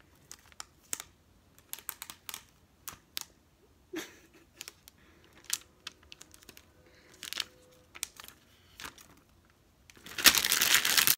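Clear plastic shrink wrap being torn open and peeled off a phone box: scattered crinkles and crackles, then a loud burst of crinkling about ten seconds in as the wrap comes free.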